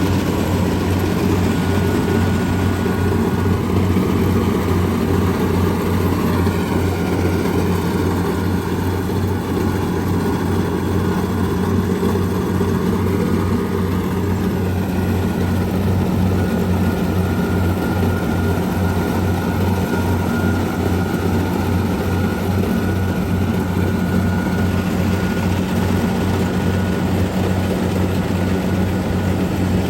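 Kubota DC688Q combine harvester's diesel engine running steadily as the machine works, a constant low drone. A faint high whine from the machinery comes in near the start and again from about halfway on.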